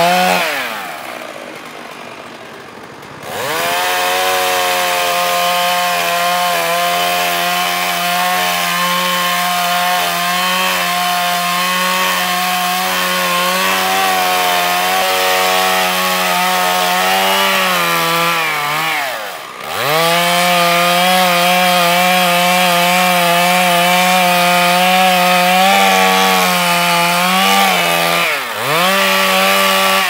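Two-stroke chainsaw at full throttle, cutting into a standing tree trunk. Three times the engine drops off and revs back up: over the first few seconds, a little past halfway, and briefly near the end.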